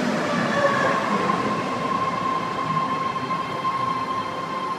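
BART train pulling into the station and slowing to a stop, its wheels and running gear rumbling with a steady high whine over the top. The noise eases slightly toward the end.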